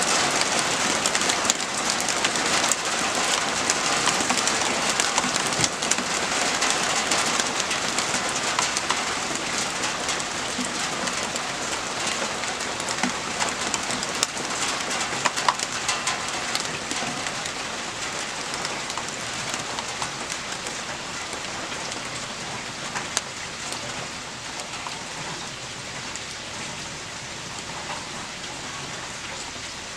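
Rain falling steadily, a dense hiss full of small drop ticks, gradually easing off toward the end.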